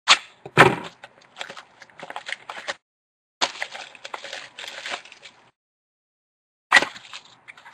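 Foil trading-card pack wrapper crinkling and tearing as the pack is pulled open and the cards are handled. It comes in three spells of sharp crackling, with dead silence between them.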